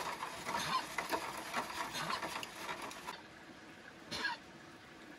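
Wooden stick stirring used frying oil in a foil pot, with oil solidifier being mixed in: a rapid run of scraping and crackling against the foil. It stops abruptly about three seconds in.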